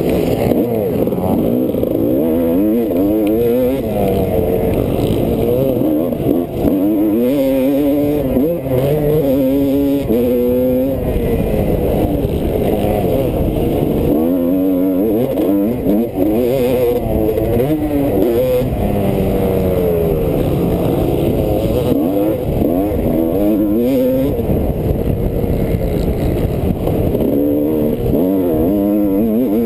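Motocross dirt bike engine heard from on board, revving hard: its pitch climbs and drops again and again as the rider accelerates, shifts and rolls off the throttle.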